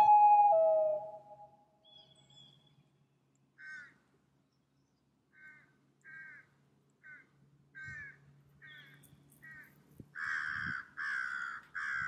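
The tail of a common loon's wail: a long, held note that slides down and fades in the first second or so. Then crows caw, a few faint scattered caws at first and a louder, quick run of caws from about ten seconds in.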